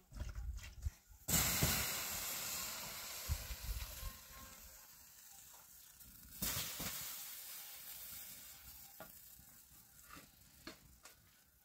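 Sizzling hiss on a hot surface, starting suddenly about a second in and fading over several seconds, then starting again, weaker, about six seconds in.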